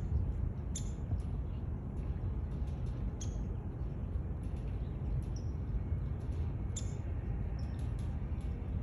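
Short, high-pitched chirps from small birds, several spaced a second or two apart, over a steady low rumble.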